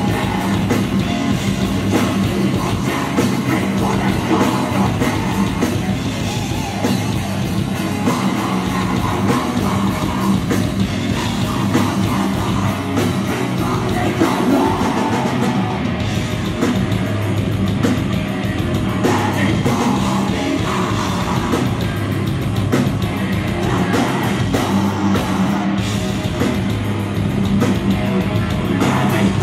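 A heavy metal band playing live and loud without a break: distorted electric guitars, fast drumming and vocals into the microphone.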